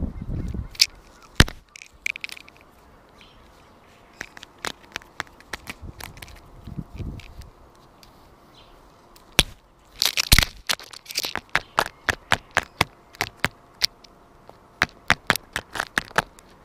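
Common starling pecking at a GoPro camera's plastic housing: sharp taps, scattered at first, then a quick run of about three a second over the last third. In the first second its wings buffet the camera with a low flutter.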